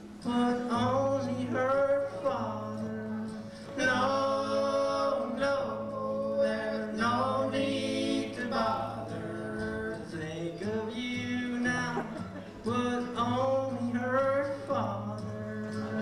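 Several male voices singing together in close harmony, mostly without instruments, with a low note held under the voices for long stretches.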